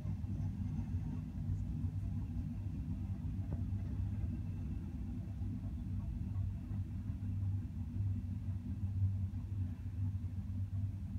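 Loaded coal hopper cars of a freight train rolling past, a steady low rumble of wheels on the rails.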